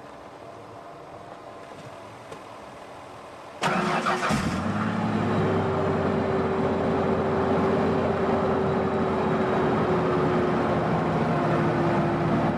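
The Ford 4.0 V6 engine in a 1983 Ford Ranger fires up about four seconds in, catching almost at once, then idles steadily with a steady whine on top. It is the engine's first start in months, after a new high-pressure fuel pump and a jump from a weak battery.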